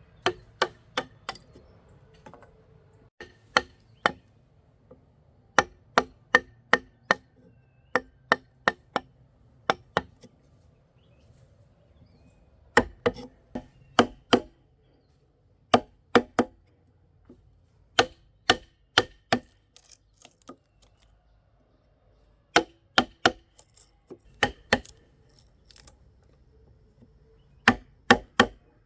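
A hand tool striking wood, in short runs of two to five sharp blows with pauses between them; each blow has a brief ringing tone.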